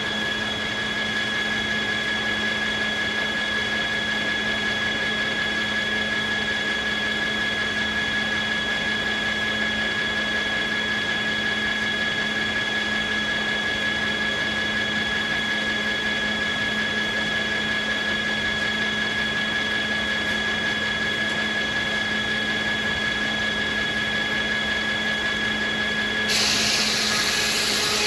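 Sawmill machinery running with a steady, high-pitched whine. Near the end the whine stops and a louder rushing, hissing noise takes its place.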